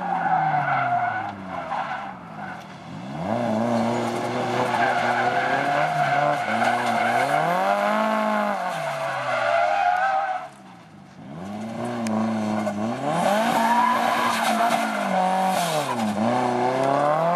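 Drift car's engine revving up and down as it slides sideways, with its rear tires squealing on the asphalt. The engine briefly drops off a little past ten seconds in, then climbs again.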